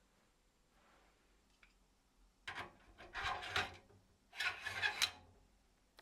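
Two scraping rubs in the wheel-building workshop, the first a little over a second long and the second shorter.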